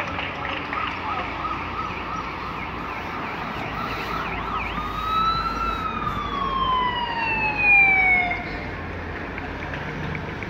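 Police siren on the race escort: a fast warbling yelp, then a long wail that slides steadily down in pitch and is loudest near its end.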